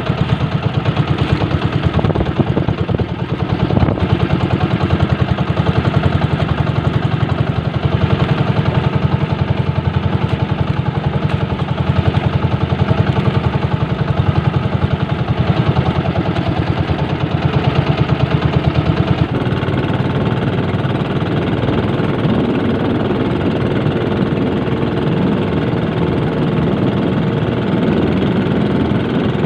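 Boat engine running with a fast, even beat. About two-thirds of the way through, the beat smooths into a steadier drone.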